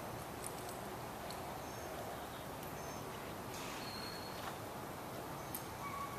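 Steady background hiss with a few faint, short bird chirps scattered through it.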